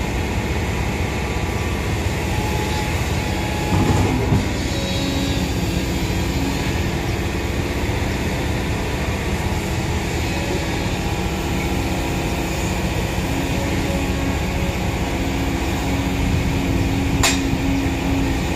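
Kobelco hydraulic excavator's diesel engine running steadily as the arm and bucket work in a trench, its engine note firming into a steady tone a few seconds in. A knock sounds about four seconds in and a sharp click near the end.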